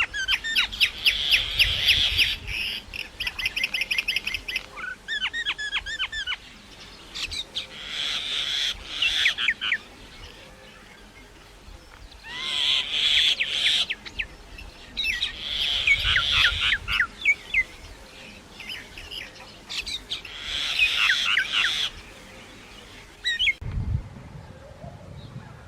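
Common myna singing in bursts of rapid chirps, whistles and harsh notes, separated by short pauses.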